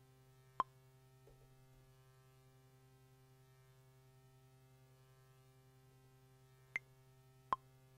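Near silence with a steady low electrical hum, broken by three short, pitched plops: one about half a second in and two near the end.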